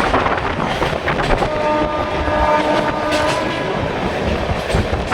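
Train running on the rails with a steady rumble and clatter of wheels. About a second and a half in, a train horn sounds with one steady tone for about two seconds.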